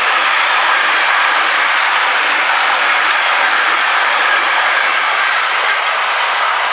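Container freight train's wagons rolling past at speed: a loud, steady noise of steel wheels on the rails.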